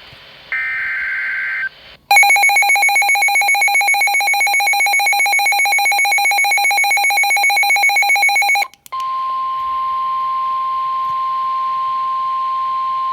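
NOAA Weather Radio severe thunderstorm warning alert: a brief screech of SAME digital header data, then a rapidly pulsing electronic alarm for about six seconds, then the steady 1050 Hz warning alarm tone starting about nine seconds in.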